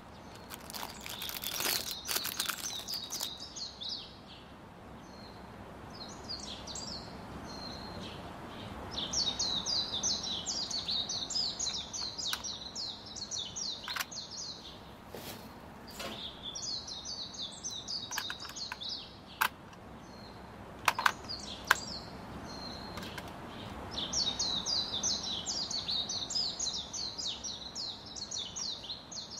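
Birds chirping in repeated runs of rapid high chirps, each run lasting a few seconds, with a few short sharp clicks of hard plastic being handled and a screwdriver at work in the middle.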